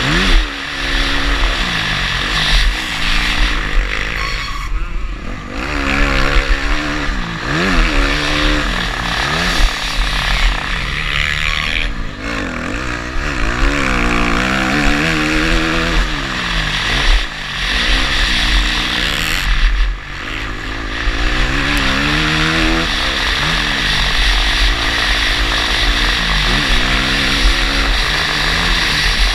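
Motocross bike engine revving hard, its pitch climbing through the gears and dropping back again and again as the throttle is opened and shut. It eases off sharply three times, near 5, 12 and 20 seconds in. A steady rush of wind over the microphone runs underneath.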